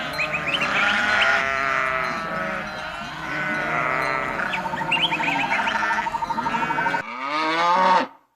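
A herd of goats bleating, many calls overlapping. Near the end, after a break, one loud long call falls in pitch.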